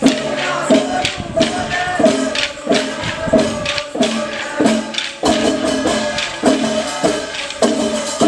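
Suggi dance procession music: a steady percussion beat, about three strikes every two seconds, with jangling jingles and a held pitched line under it.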